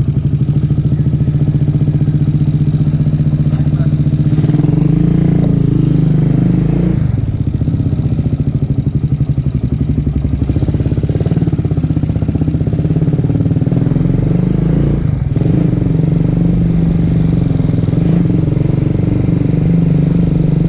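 A motorcycle engine running steadily under way, heard close up, with brief changes in engine speed about seven and fifteen seconds in.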